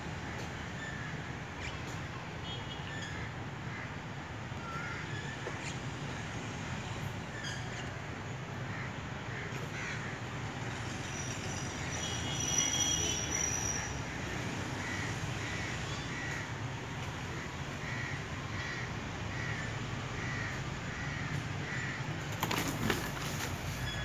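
A bird calling over and over in short calls, about two a second, over a steady low outdoor rumble. A brief high whistling tone sounds about halfway through, and a loud rustling crackle comes near the end.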